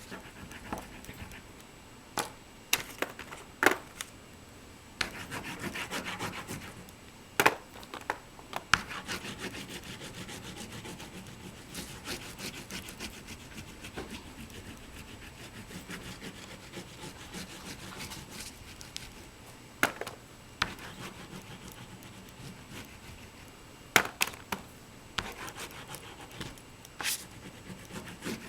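Oil pastel rubbing and scratching across paper in long stretches of strokes, with a few sharp clicks and taps scattered through.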